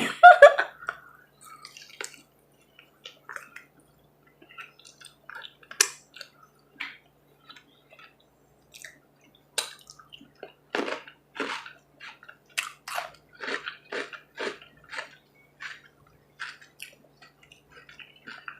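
Close-up chewing and wet mouth smacks of someone eating saucy buffalo chicken wings, irregular at first, then a quicker run of smacks from about ten seconds in.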